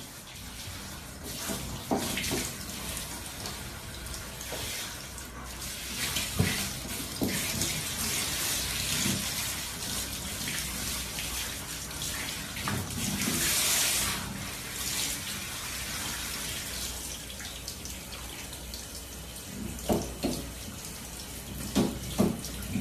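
Handheld shower head spraying water onto a dog's coat in a shower stall, a steady hiss of running water. A few brief louder sounds stand out from it, two of them near the end.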